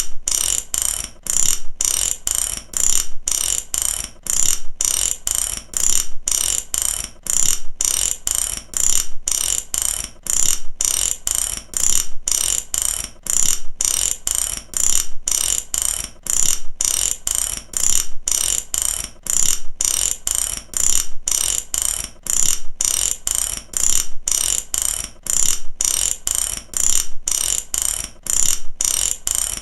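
Mechanic's ratchet wrench being worked over and over, each stroke a burst of rapid pawl clicks, repeating steadily.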